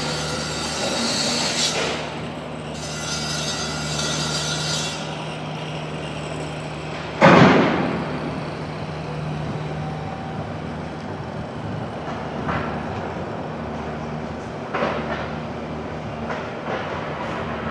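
Downtown street and construction-site noise: a steady mechanical hum with high metallic squealing over the first few seconds, then one loud bang about seven seconds in and a few lighter knocks later.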